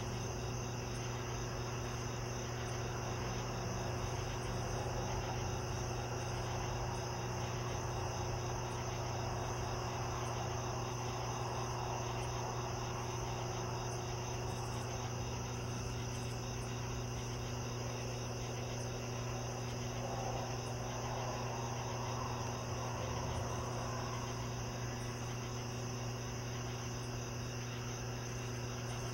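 Crickets chirping in a steady, continuous chorus, over a steady low hum.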